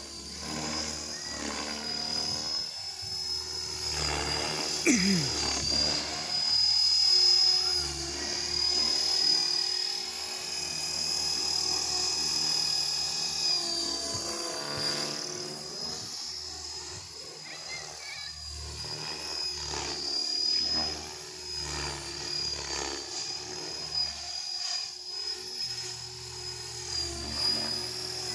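Electric 3D RC helicopter (ALZRC Devil X360 kit on a 4-cell battery) flying: a steady high motor whine over the rotor blades' whoosh, which rises and falls as it manoeuvres, with one sharp falling sweep about five seconds in.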